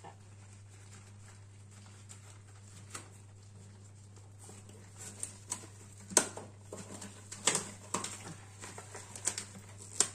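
Rubber dishwashing gloves being worked onto the hands: faint handling at first, then from about five seconds in a string of sharp snaps and clicks of the stiff rubber. A low steady hum runs underneath.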